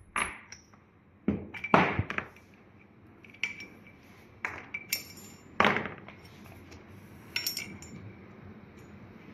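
Adjustable dumbbell's metal parts being handled: a series of about eight separate clinks and knocks at irregular intervals, several with a short metallic ring.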